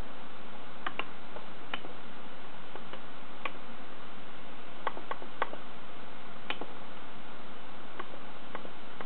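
About ten short clicks at uneven spacing as the Asus Videophone Touch's touchscreen menus are tapped through, over a steady hiss.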